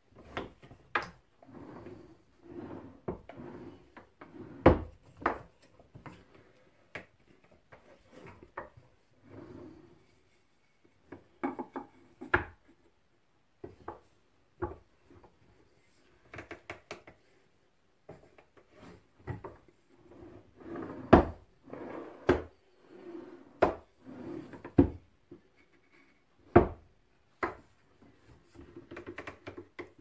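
Homemade birch plywood quick-release vise being worked by hand: wooden rubbing and sliding as the handle turns and the front jaw moves in and out, between irregular sharp wooden knocks and clunks.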